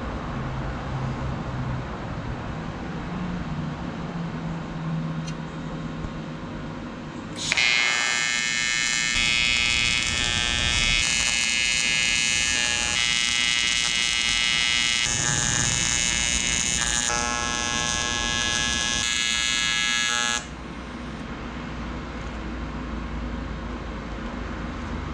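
AC TIG welding arc on an aluminium body panel, a loud steady buzz that starts about seven seconds in, runs for about thirteen seconds with small shifts in tone every couple of seconds, then cuts off abruptly.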